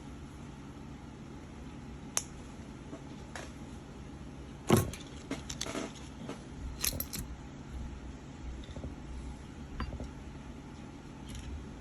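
Desoldering tools being handled on a circuit board: scattered small clicks and metallic clinks, the loudest a sharp snap about halfway through, followed by a quick run of clicks.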